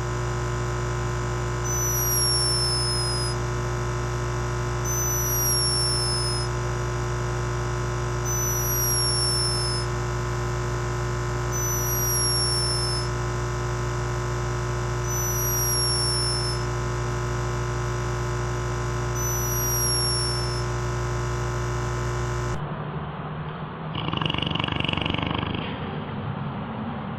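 A sleeping cat purring and snoring steadily, swelling with each breath about every three and a half seconds, with a thin falling whistle on every breath. It cuts off suddenly about 22 seconds in, and a different, noisier animal snoring follows.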